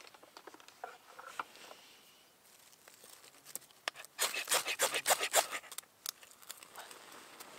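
A quick run of sharp scraping strokes about four seconds in, lasting just over a second, as fatwood tinder is being lit. Faint scattered ticks come before it.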